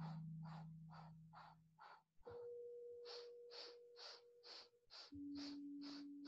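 Quick, rhythmic breaths pumped through the nose or mouth, a little over two a second, with a brief pause about two seconds in: a yogic breathing exercise. Soft background music with long held notes plays under them.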